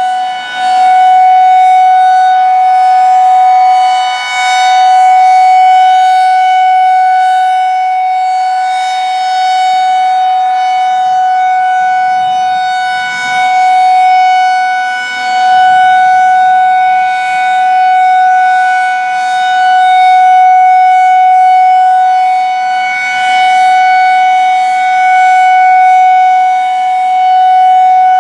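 Federal Signal 2001-SRN "Roundback" electromechanical outdoor warning siren sounding a steady alert signal: one loud, unwavering tone that swells and fades every few seconds as the rotating siren head sweeps past.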